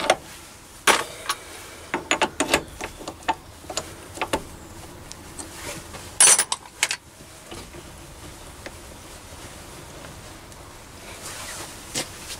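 Metal clicks, knocks and clatter of lathe tool holders being handled as a grooving tool is fitted into the mini lathe's toolpost, with one louder rattle about six seconds in. The last few seconds are quieter, with only faint background.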